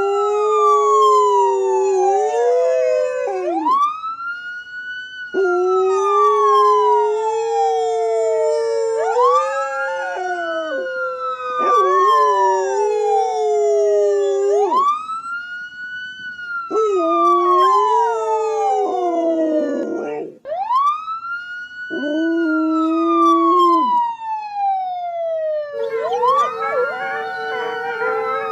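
An emergency-vehicle siren wails, each cycle rising quickly and then falling slowly, about every five seconds. Under it, a canine howls along in long held notes, with more howling voices joining near the end.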